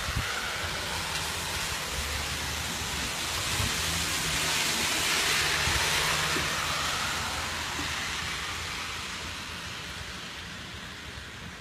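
Heavy rain during a thunderstorm, a steady hiss that swells about halfway through and slowly eases toward the end.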